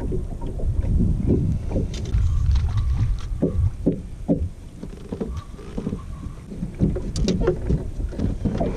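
Low wind rumble on the microphone and water lapping against a fibreglass bass boat's hull, with scattered knocks and splashy thuds, heaviest in the first half.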